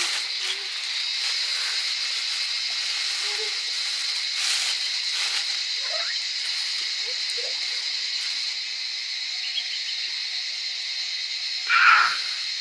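A steady high-pitched hiss with a few faint short sounds, and a brief louder sound about twelve seconds in.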